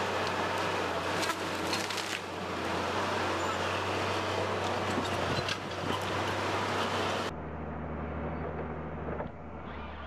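Heavy machinery running: a steady low engine hum under loud clattering mechanical noise with scattered knocks, changing abruptly about seven seconds in to a duller, steadier engine hum.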